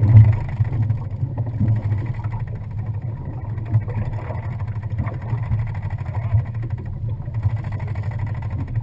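Boat motor running with a steady low drone that wavers slightly in level.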